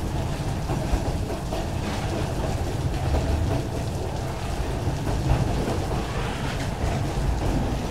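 Loaded freight wagons stacked with eucalyptus logs rolling past with a steady low rumble, in heavy rain.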